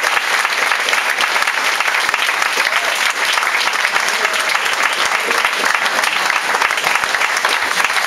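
Audience applauding, a dense steady clapping with a few voices heard among it.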